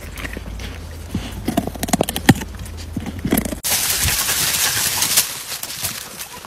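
A dog chewing and crunching on raw vegetables: a run of sharp, irregular crunches and clicks. About halfway through, the sound cuts abruptly to a steady hiss with a few more crunches over it.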